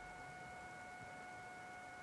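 Near silence: a faint steady hiss with a thin, steady high whine.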